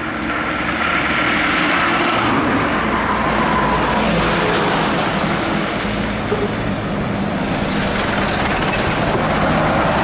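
Road traffic passing close by: truck and motorcycle engines with tyre noise on the asphalt, steady and loud, with engine pitch sliding down in the first few seconds as a vehicle goes past.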